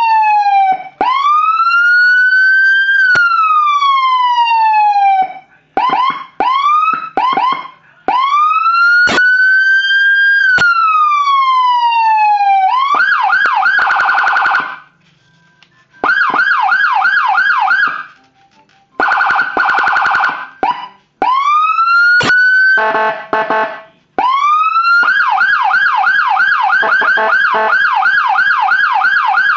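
Senken/Whelen 2-in-1 electronic siren played through a Whelen low-profile speaker, switching between its tones. It plays a slow wail that rises and falls, short rising chirps, a buzzing horn blast heard a few times, and near the end a fast, rapidly repeating yelp. There are brief silent gaps between the patterns.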